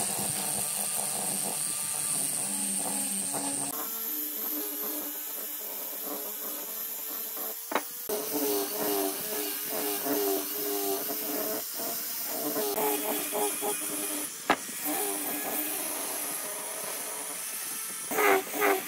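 Electric angle grinder fitted with a sanding drum running while sanding a wooden table leg, a steady motor whine whose pitch wavers and dips as the drum is pressed into the wood. The sound changes abruptly a few times and is broken by short clicks.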